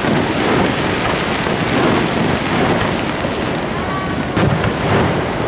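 Fireworks bursting, with a sharp bang about four and a half seconds in, over a steady rushing noise and crowd voices.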